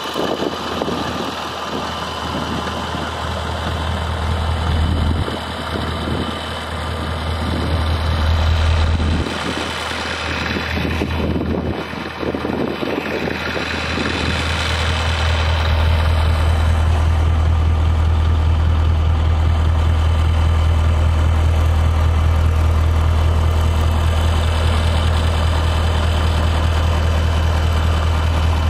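Scania R144G's V8 diesel idling, a low steady drone that wavers in the first half and evens out from about halfway through.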